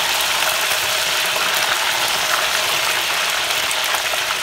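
Chicken wings deep-frying in a pot of hot oil: a steady, dense sizzle dotted with many small crackles and pops.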